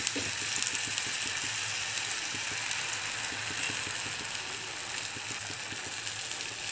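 Rice-flour cheela batter sizzling steadily in an oiled nonstick pan over a low gas flame.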